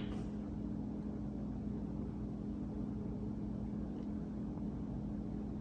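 Steady low background hum with a couple of faint held tones, unchanging throughout.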